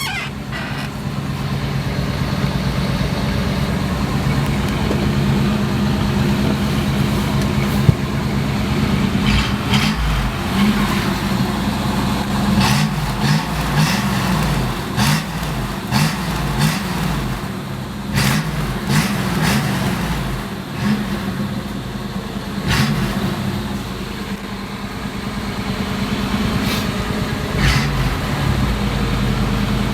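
The engine of a 1984 Dodge Ram camper van running steadily, back in running order after sitting for two years. Its pitch wavers up and down for a while in the middle, and there are a few sharp clicks.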